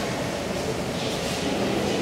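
SMW machine-room-less traction elevator car travelling in its glass shaft: a steady running rumble and hiss.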